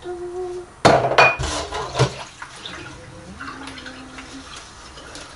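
Dishes and cutlery clattering as they are handled: a burst of sharp clanks about a second in, another at two seconds, then quieter knocking.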